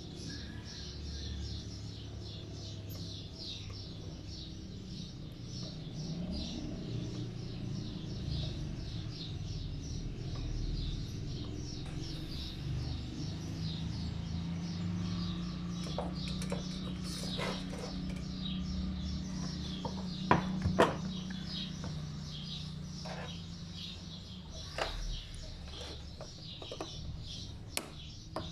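Small birds chirping over and over, with a steady low hum underneath and a few sharp clicks, the loudest pair about twenty seconds in.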